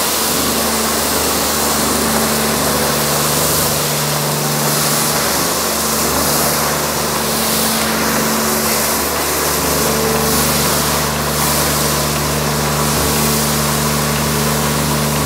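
Pressure washer running steadily, its pump giving a low hum under the loud hiss of snow foam spraying from a foam lance onto a car.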